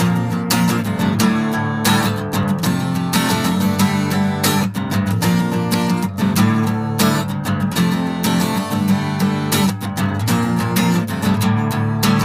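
Instrumental song intro: a strummed acoustic guitar playing chords at an even beat.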